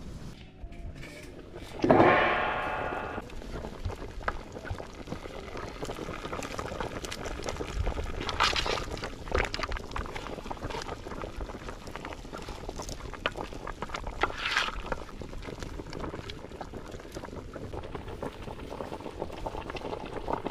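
A goat bleats loudly once about two seconds in. Then a large pot of catfish stew bubbles steadily on the boil, with a couple of brief louder stirring sounds.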